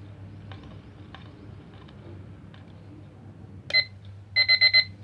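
A few faint clicks, then near the end a quartz alarm clock's alarm starts: one loud high-pitched beep followed by a quick burst of rapid beeps at the same steady pitch.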